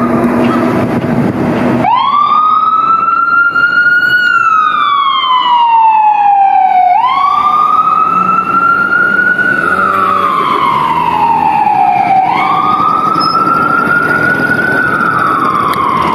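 Federal Q mechanical siren on responding fire apparatus, winding up and coasting down three times, each cycle about five seconds: a quick rise to a high wail that keeps climbing slightly, then a long falling glide.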